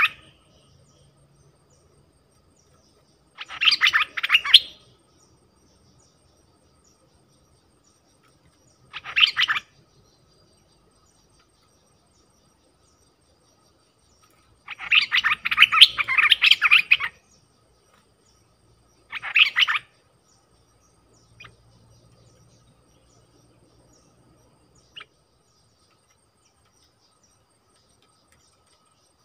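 A merbah lekir bulbul singing in short bursts of rapid phrases a few seconds apart. There are four bursts, the longest about two seconds, then two faint single chirps near the end. This is bulbul song used as a decoy call to lure wild birds of the same kind.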